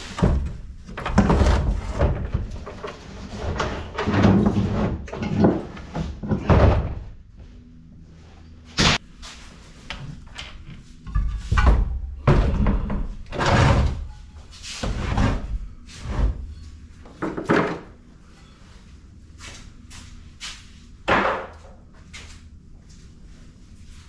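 Scrap metal being handled: about fifteen irregular heavy clunks and bangs, some with a short rumbling tail, with quieter stretches between and a lull near the end.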